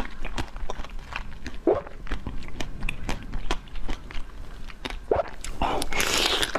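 Close-miked eating: a quick run of sharp crunchy clicks and chewing, with a louder, hissy crunch near the end.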